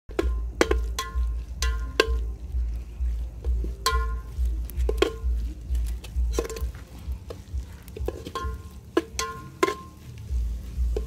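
Metal ladle stirring and scraping in an aluminium pot of sautéing masala, giving sharp ringing clinks against the pot at an uneven pace of about one or two a second, over a low steady rumble.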